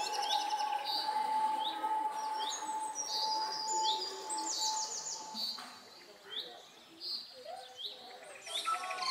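Wild birds chirping and calling, with quick repeated chirps and trills overlapping. A steady held tone sounds beneath them for the first half. The birdsong thins out about six seconds in and picks up again near the end.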